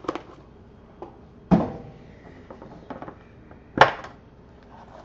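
Handling of a hard trading-card box and its inner case: a scatter of light clicks, with two louder knocks about a second and a half in and again near four seconds.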